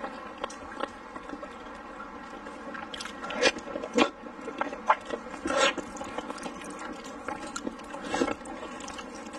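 Close-miked eating sounds: wet biting, chewing and sucking of saucy food, with the loudest bites and slurps about three to four seconds in and again near six and eight seconds, over a steady faint hum.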